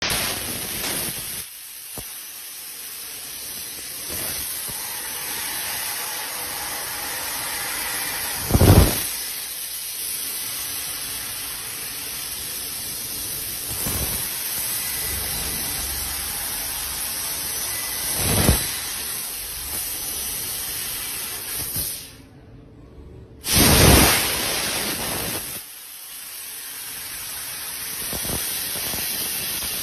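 Fiber laser tube cutting machine cutting a square metal pipe with a bevel head: a steady hiss of the cutting-gas jet, with a few louder gusts. About three-quarters of the way through the hiss stops for a moment, then comes back with a loud gust.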